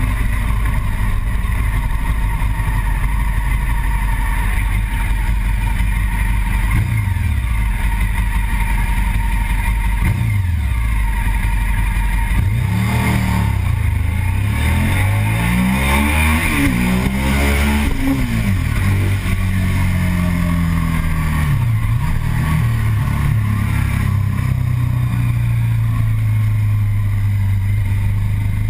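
Sport motorcycle engine running under way, heard from the rider's seat with wind noise. About halfway through the engine pitch rises and falls several times, then settles back to a steady drone.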